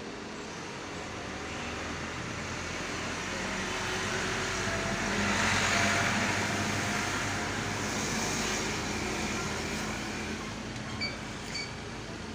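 Hot air rework station blowing a steady hiss of air while a flux-coated IC is reflowed, swelling to its loudest about halfway through and then easing off. Two small clicks near the end.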